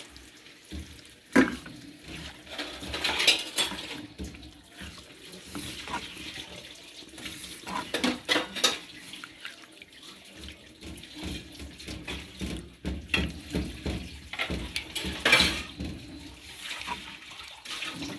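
A spatula stirring chicken pieces through a thick yogurt-and-spice marinade in an unheated non-stick pan. Irregular wet squelching and scraping strokes, with a few sharper knocks against the pan.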